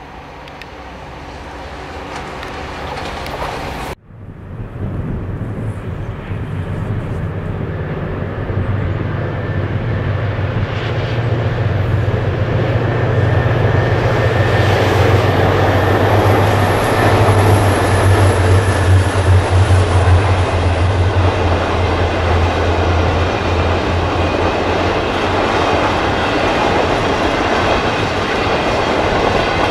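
VIA Rail passenger train hauled by two F40PH-2 diesel locomotives approaching and passing: the diesel engines' sound builds to its loudest about two-thirds of the way through, then the long string of passenger cars rolls by with the clickety-clack of wheels on rail joints. A sudden short drop in the sound comes about four seconds in.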